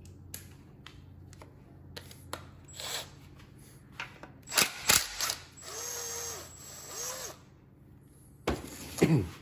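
Hand tools working on a small engine's metal parts: scattered clicks and ratcheting, with two loud knocks about halfway through, a short rasping stretch after them, and another loud knock near the end.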